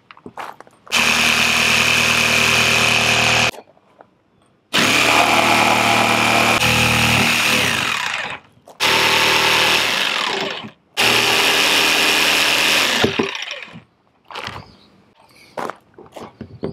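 Cordless jigsaw cutting a rectangular opening in the top of a plastic water tank, running in four bursts of a few seconds each with short stops between. Near the end the saw is off and there are light knocks and handling clicks as the cut-out piece is lifted.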